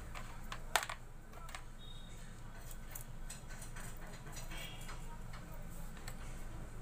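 Small metal parts of a clutch master cylinder rebuild kit (piston, seals, spring) clicking and tapping as they are handled and fitted by hand, with one louder click about three-quarters of a second in.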